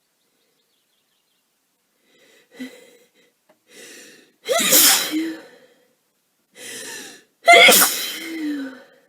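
A woman with a head cold sneezing twice, about three seconds apart, each sneeze preceded by a sharp inhale.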